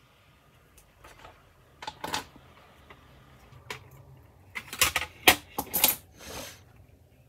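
Plastic model kit parts and clamps being handled on a work mat: a few sharp plastic clicks, then a quick cluster of louder clacks about two-thirds of the way through.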